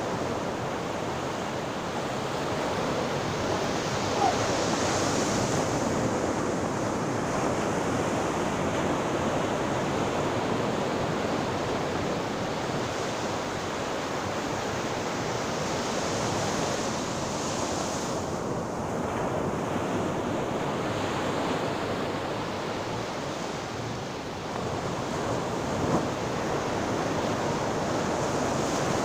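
Sea waves breaking and washing on a shore, a continuous surf that swells and eases gently every several seconds, with some wind.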